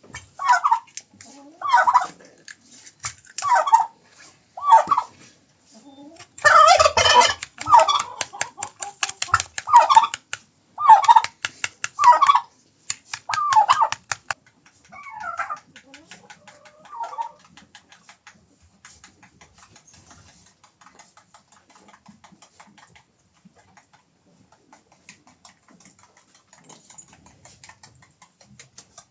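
Farmyard poultry calling over and over, short loud calls about one a second, with a denser rattling burst a few seconds in. The calls die away about halfway through, leaving only faint scattered ticks.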